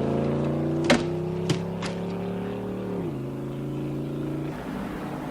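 A car engine pulling away through the gears, its pitch dropping at each upshift, twice, then fading off near the end. Three sharp clicks come between about one and two seconds in.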